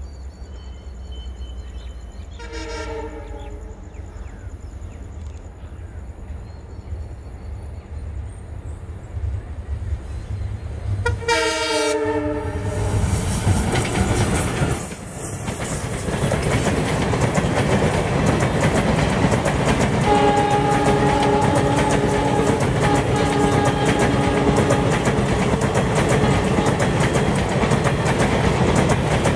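WDG-4 diesel-electric locomotive's 16-cylinder two-stroke engine rumbling as it approaches, hauling a passenger train up a gradient, sounding two horn blasts, the second one dropping in pitch. The locomotive and coaches then pass close by with loud, continuous wheel-and-rail clatter, with a steady ringing tone for a few seconds midway through the coaches.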